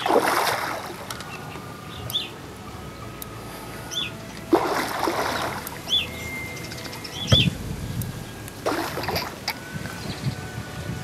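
Water splashing in three bursts of about a second each, with short, high bird chirps in between.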